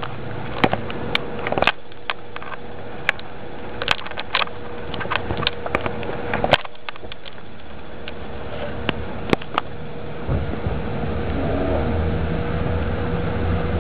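Scattered clicks and rustles of a handheld camera being pushed through dense leaves, over a steady faint hum. A low rumble builds from about two-thirds of the way through.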